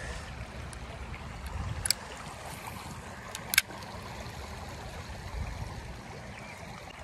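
Steady low outdoor rumble with two sharp clicks about a second and a half apart, the second one louder.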